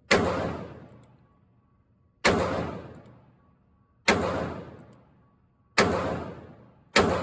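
Rock Island Armory Model 206 .38 Special revolver fired five times in slow, evenly paced single shots, each a sharp crack with an echoing tail that fades over about a second.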